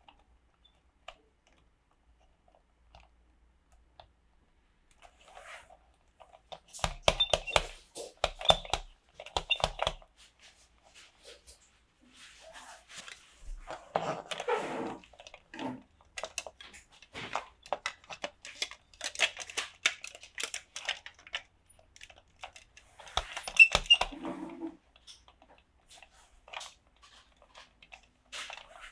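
Toy packaging and small plastic pieces being handled in close-up: irregular crinkling, crackling and clicking that starts about six seconds in, with louder bunches of crackle near the start and again near the end.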